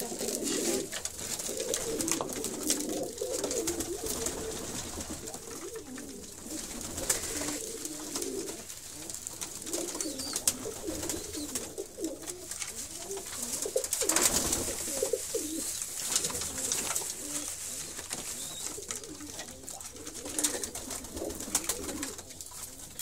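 A flock of domestic pigeons cooing continuously, many overlapping calls at once, with frequent short wing flutters and scuffles among the birds, one louder flurry a little past the middle.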